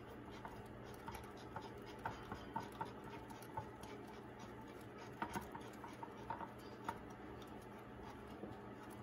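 Faint scratching and scattered small clicks of a hand turning a new spin-on oil filter onto its threaded mount, over a faint steady hum.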